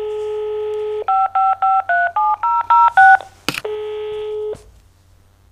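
Telephone line: a steady dial tone, then a quick run of about eight touch-tone keypad beeps as a number is dialed. A sharp click follows, the dial tone comes back for about a second, then cuts off.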